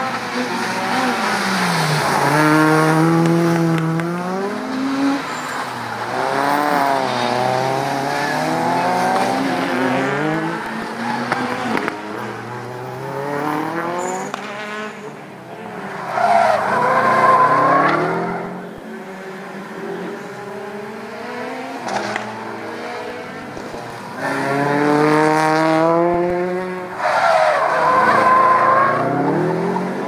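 Rally cars driven hard one after another through tight turns: engines revving up and dropping back again and again as they change gear, with tyres squealing. The loudest passes come about halfway through and again near the end.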